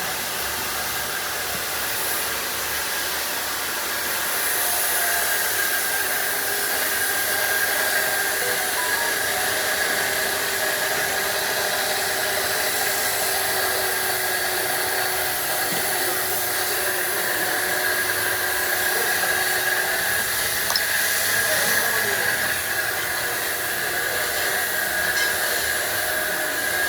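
Steady rushing, fan-like noise with a faint steady high whine running through it.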